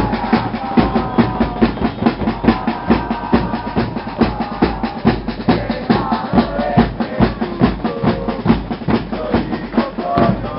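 Supporters' drum band of bass drums and snare drums beating a quick, steady rhythm, with a crowd chanting over it.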